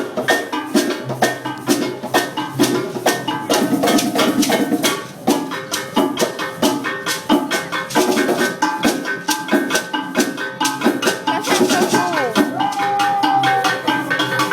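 Live African drum ensemble playing a fast, dense rhythm on hand drums with rattling shakers.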